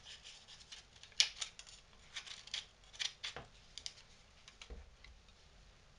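Ordinary scissors snipping through paper in irregular short cuts, trimming off the excess. The cuts come thickly at first and thin out to a few faint ones near the end.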